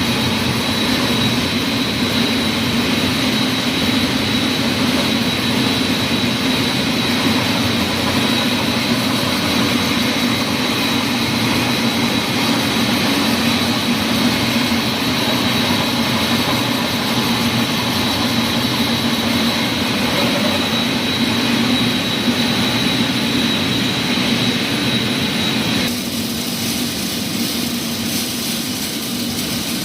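Wire-making machinery running steadily, a loud constant mechanical hum with a high steady whine. About 26 seconds in the whine stops and the machine sound changes.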